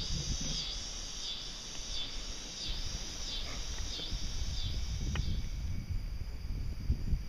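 Insects singing in a pulsing rhythm, about three pulses every two seconds, fading out near the end, over a low rumble of wind on the microphone.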